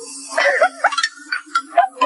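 Short pitched voice sounds over a steady low note of background music.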